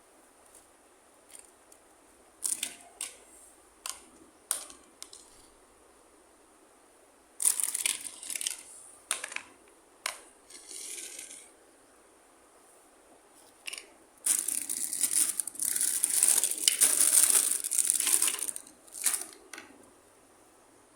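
Small plastic toy pieces and packaging being handled: a few sharp clicks and taps, then several seconds of dense crinkling and rustling of plastic packaging near the end.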